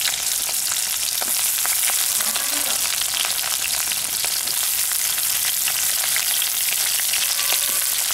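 Cut onions frying in hot oil with bay leaves in a kadai: a steady sizzle with many small crackles and pops, right after the onions went into the oil.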